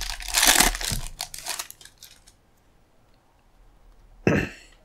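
Plastic wrapper of a baseball card pack crinkling and tearing as it is ripped open, for about two seconds, followed by a short rustle near the end.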